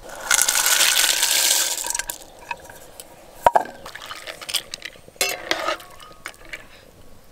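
Dry fusilli pasta poured from a bowl into a pot of hot water, a loud rush of splashing for about two seconds. Then a metal spatula stirs it, knocking and scraping against the aluminium pot a few times.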